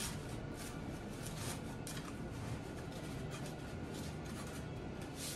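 Paper towel rustling and crinkling as it is pushed and packed by hand into the hollow cut end of a longhorn horn: a run of soft, irregular scratchy rustles.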